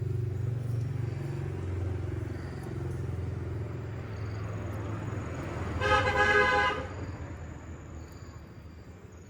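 A motor vehicle's engine running low and fading away, with a single horn honk about six seconds in that lasts about a second.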